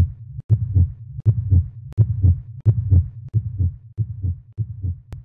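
Heartbeat sound effect: paired low thumps, lub-dub, repeating at about 90 beats a minute, with a couple of sharp clicks.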